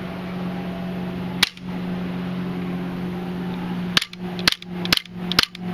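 WE Hi-capa airsoft gas blowback pistol being fired: one sharp snap about a second and a half in, then a quick string of snaps about two a second from about four seconds in, over a steady low hum. The gun is showing the malfunction its owner is troubleshooting, which the uploader tags as a gas leak and not firing properly.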